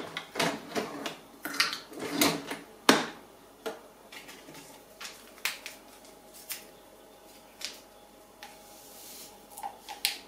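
Plastic clicks and knocks of a Philips L'OR capsule coffee machine and a glass mug being handled, a quick run of them in the first three seconds, then scattered single taps, with a few light spoon-on-glass clinks near the end.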